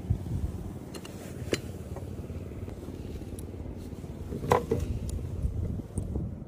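Small plastic clicks and knocks from handling the RC excavator's battery hatch and a LiPo battery pack, with a sharper click about a second and a half in and the loudest one about four and a half seconds in, over a low steady rumble.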